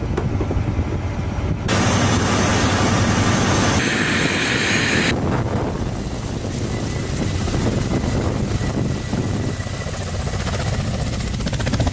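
Ka-52 attack helicopter flying low: its coaxial rotors and turbine engines make a steady rumble. The sound changes abruptly, with a louder hissing rush from about two to five seconds in, then a lower rumble.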